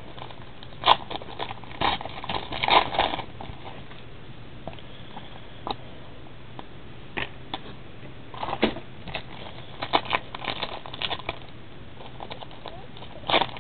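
Football trading cards being flipped through and handled, short rustles and clicks in bunches with a quiet gap of a few seconds in the middle, over a steady low hum.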